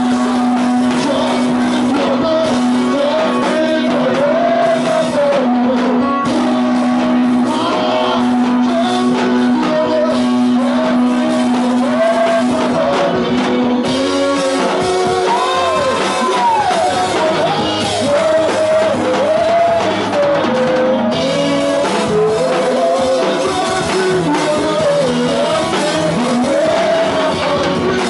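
Live gospel worship music: several singers on microphones singing together over an electronic keyboard. A low note is held steadily under the voices for about the first half and comes back near the end.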